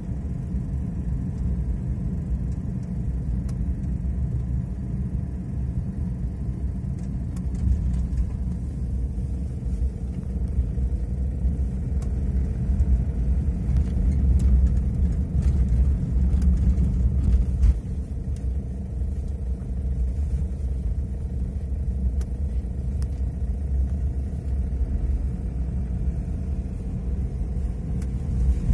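Steady low rumble of a car's engine and tyres heard from inside the cabin while driving slowly in city traffic, swelling a little about halfway through.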